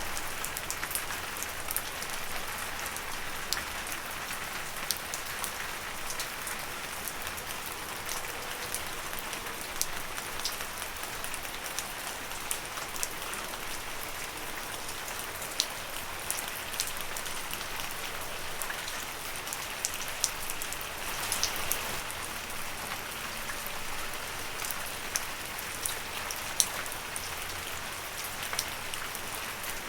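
Steady rain falling on leaves, a constant hiss dotted with many close, sharp drop ticks.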